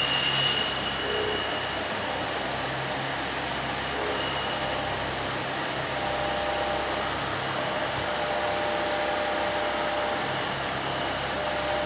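CNC milling machine cutting a metal mold block with an end mill: a steady whirring machining noise, with a high whine in the first couple of seconds and fainter tones later on.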